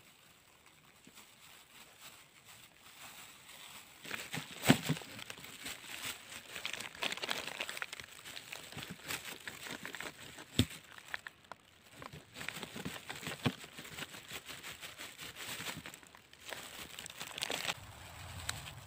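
A plastic food bag crinkling as it is handled and opened, with a knife slicing on a cutting board and a few sharp knocks, the loudest about a quarter of the way in. The first few seconds are quiet.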